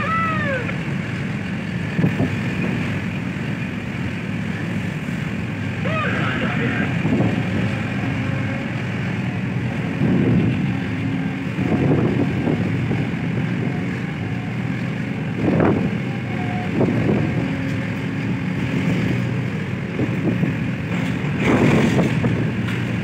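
Steady low drone of heavy machinery from a cargo ship and port container cranes, with a couple of short squeals near the start and about six seconds in.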